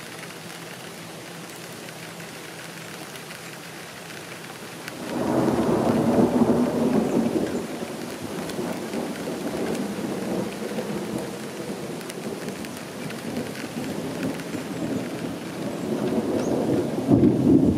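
Steady rain falling. About five seconds in, a long rolling rumble of thunder breaks in over it and keeps going, swelling again near the end.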